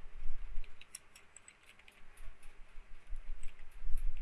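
Typing on a computer keyboard: a run of light, irregular key clicks starting about a second in.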